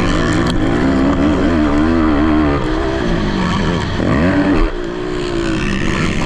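Several racing ATVs' engines revving at once, their pitches rising and falling as the riders work the throttle. One climbs sharply about four seconds in, then backs off.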